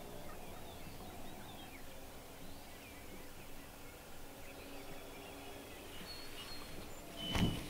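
Wild turkey gobbling once, short and loud, near the end, over a steady background of songbirds chirping.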